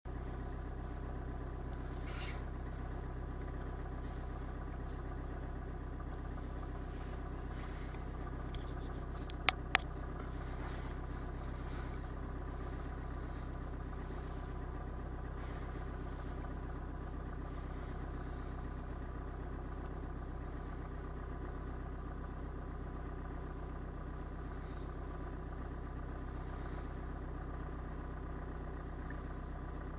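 Car engine idling steadily, heard from inside the cabin of a stationary car, with two sharp clicks in quick succession about nine and a half seconds in.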